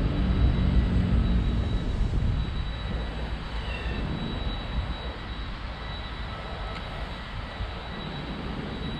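A low, steady engine drone with a pitched hum, loudest in the first two seconds and fading after that.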